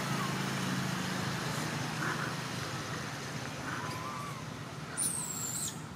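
Outdoor background: a steady low hum that stops about two and a half seconds in, a few faint short chirps, and a brief high-pitched whistle near the end.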